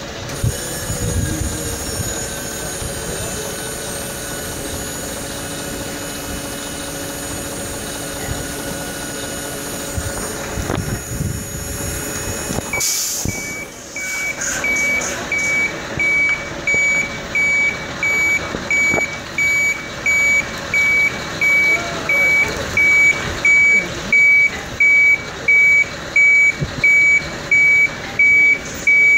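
Heavy-haulage truck's diesel engine running steadily while moving its load. About halfway through, a reversing alarm starts up, loud regular beeps at one pitch a little over once a second.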